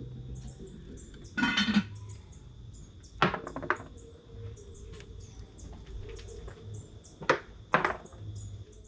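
Birds chirping over and over, with a steady thin high tone underneath, broken by a handful of sharp knocks and clatters, two about three seconds in and two more near the end.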